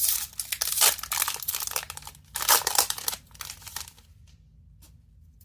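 A booster pack's plastic-foil wrapper crinkling and tearing as it is ripped open by hand, a dense rustle that stops about four seconds in.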